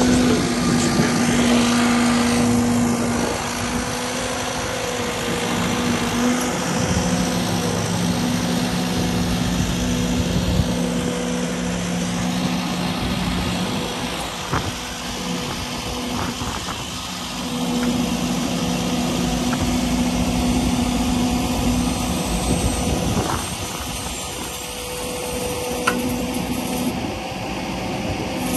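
Caterpillar 308 CR mini excavator's diesel engine running steadily, its note shifting up and down as the boom is worked, with a few sharp knocks.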